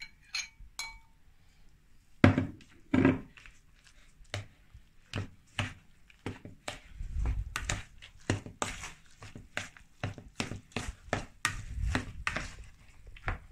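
Utensil stirring a wet mixture of grated zucchini, eggs and cheese in a mixing bowl. A short ringing clink comes near the start and two heavier knocks follow about two to three seconds in. Then comes a run of quick strokes against the bowl, about two to three a second.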